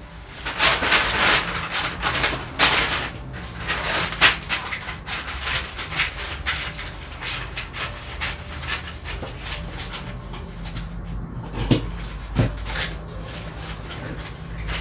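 A dog panting in short, quick breaths, mixed with stiff pattern paper rustling and being cut with scissors. Two brief pitched squeaks come near the end.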